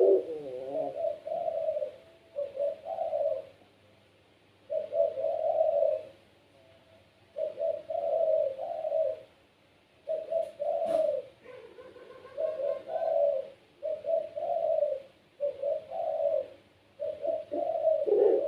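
Puter pelung dove, a domestic Barbary dove, cooing in a run of low repeated coo phrases of about a second or two each with short pauses between. A single sharp click sounds about halfway through.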